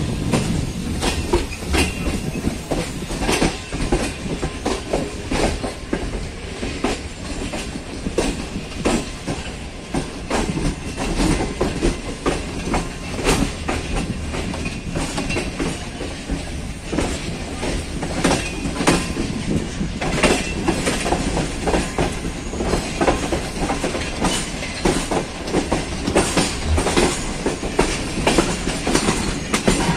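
Wheels of a Pakistan Railways passenger coach clattering over rail joints and points in a station yard: a steady low rumble broken by many irregular sharp clacks.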